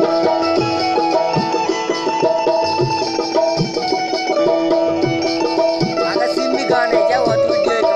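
Live traditional instrumental music: a busy melody over a held drone, with a steady low drum beat.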